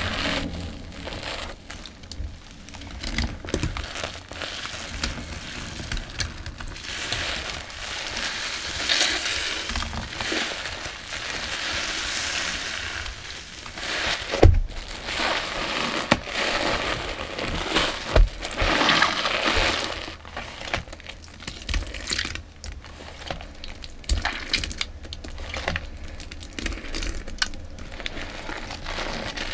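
Shampoo-soaked sponges squeezed and kneaded by hand in a basin of thick suds: irregular wet squelching with crackling foam, swelling and easing with each squeeze, and a couple of sharper knocks about halfway through.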